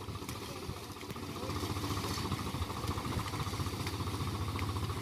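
Swaraj tractor's diesel engine running steadily under load as it pulls a trolley piled with sugarcane, with a low, even beat. It grows a little louder about a second and a half in.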